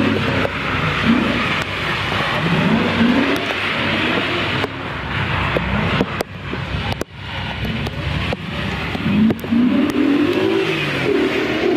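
BMW 4.0-litre V8 swapped into a Mazda RX-8, revving hard and repeatedly, its pitch rising and falling as the throttle is worked on and off. About six to seven seconds in the engine falls back briefly, then climbs again in a long rising pull as the car accelerates.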